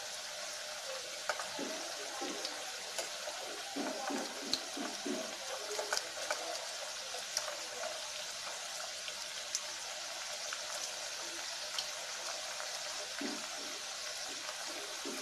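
Bitter gourd slices deep-frying in hot oil: a steady sizzle with scattered crackles and pops, while a slotted spoon moves through the oil turning them.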